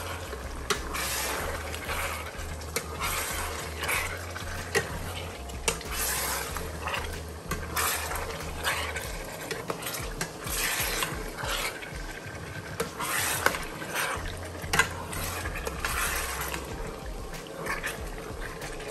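A metal spoon stirs and scrapes meat and onions around a stainless steel pot, with repeated clinks against the pot, while the meat fries.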